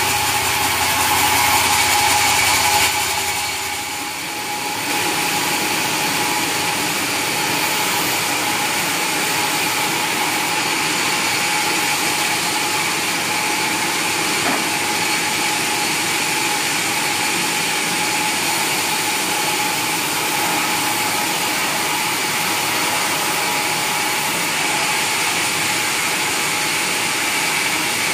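Sawmill machinery running steadily on mahogany logs: a dense mechanical noise with a constant high whine. The level dips briefly about four seconds in, then holds steady.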